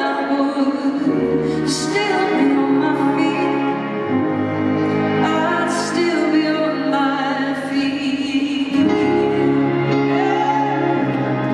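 A woman singing a slow, tender ballad with a band, amplified. The backing holds sustained chords, and the bass note changes every few seconds.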